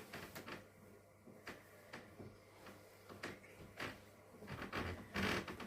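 Scattered light clicks and knocks of small objects being handled, with a louder knock cluster about five seconds in.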